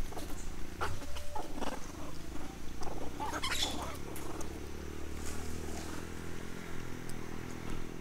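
Long-tailed macaque eating fruit: a few short, wet biting and chewing sounds, the loudest cluster about three seconds in, over a low steady hum.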